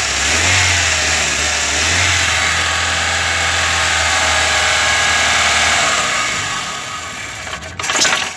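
2003 Chevrolet Corsa's 1.8-litre four-cylinder engine running steadily, then cutting out about six seconds in and running down to a stall: the spark drops out from a failing ignition coil while the injection pulse keeps working. A sharp knock is heard just before the end.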